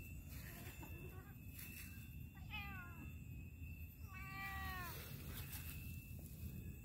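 Domestic cat meowing twice, each meow falling in pitch: a short one about two and a half seconds in, then a longer one about four seconds in.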